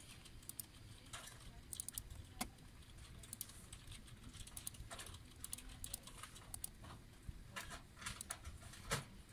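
Scattered light clicks of a computer mouse and keyboard being operated, a dozen or so irregular clicks, some in quick little clusters, over a faint room hum.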